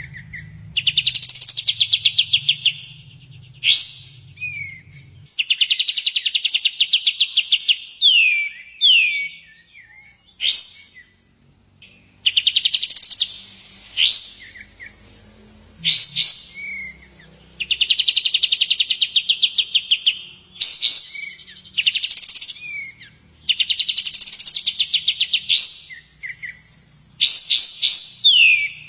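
Songbird singing loudly in repeated phrases of a fast, even trill about two seconds long, every few seconds, broken by sharp down-slurred whistles and short chips.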